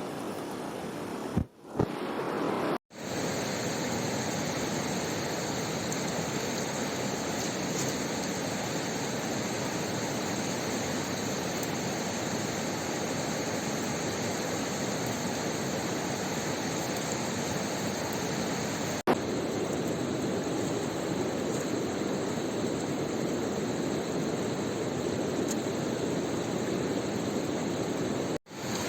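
Steady rush of a fast-flowing mountain river. It drops out briefly about a second and a half in, again near three seconds, and near the end, with a single sharp click partway through.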